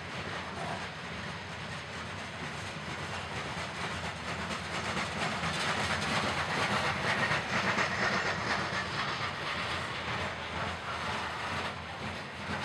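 Loaded coal hopper cars of a CSX freight train rolling past: a steady rolling noise from the steel wheels on the rails, with quick clicks running through it, growing somewhat louder in the middle.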